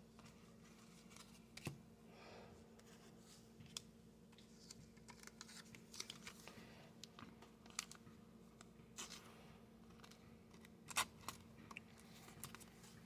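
Near silence with faint scattered clicks and light scrapes of trading cards being handled and flipped, over a faint steady low hum.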